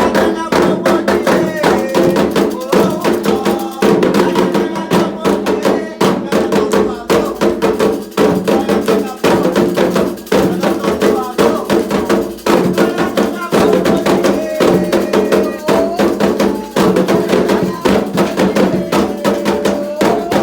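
Candomblé ritual drumming: atabaque hand drums and an agogô bell playing a fast, dense rhythm, with voices singing over it.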